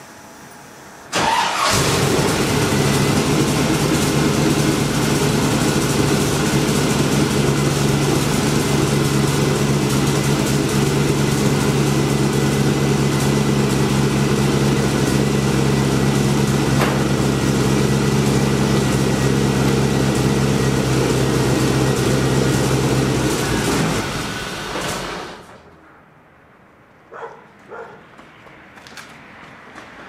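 Car engine starting about a second in and idling steadily, then dying out over about two seconds near the end as a wireless kill switch cuts power to the fuel pump.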